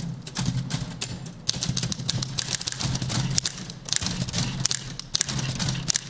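Several manual typewriters played together as a percussion ensemble: dense, rapid key strikes clattering in a rhythm, over a pulsing low thud.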